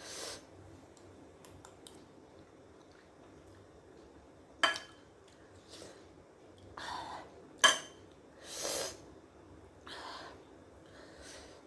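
Eating from a plate: two sharp clinks of cutlery on dishware about three seconds apart, with several breathy puffs in between, as after a mouthful of hot chilli.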